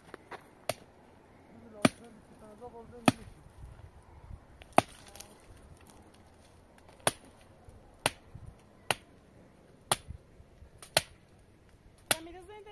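A tool chopping, about ten sharp blows struck at uneven intervals of roughly a second.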